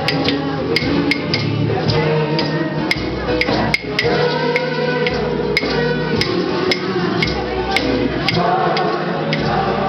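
Kitchen band playing a tune: a massed melody from the players over guitar, with a sharp clicking beat of about two clicks a second from kitchen-utensil percussion.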